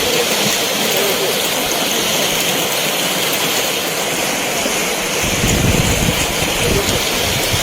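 Steady rushing noise of water, with low rumbling buffets of wind on the microphone a little past halfway.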